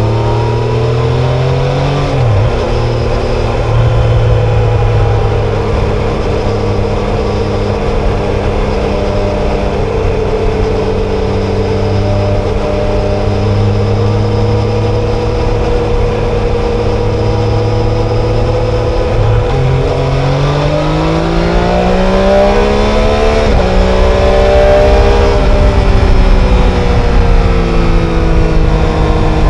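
Triumph Tiger Sport 660's 660 cc inline-three engine under way. It pulls up through the revs and drops pitch at a gear change about two seconds in, then holds a steady cruise. Near two-thirds through the revs climb again, with a quick break at another gear change, and then ease off toward the end.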